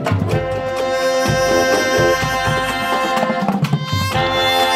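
Drum and bugle corps playing: brass bugles, including contrabass bugles, hold loud chords over marching snare drums. The chords shift about a second in and again near the end.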